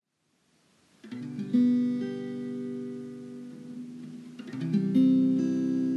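Intro music: acoustic guitar chords strummed and left to ring, coming in about a second in after a moment of silence, with a new chord about four and a half seconds in.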